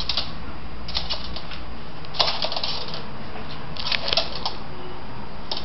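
Claws of small pets clicking and skittering on a hardwood floor as they scramble in play, in four or five short flurries of rapid clicks.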